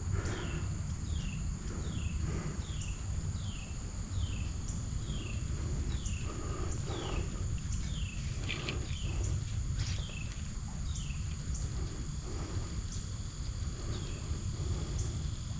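A bird repeating a short downward-slurred whistle, roughly three notes every two seconds, which stop near the end, over a steady high insect buzz and a constant low rumble.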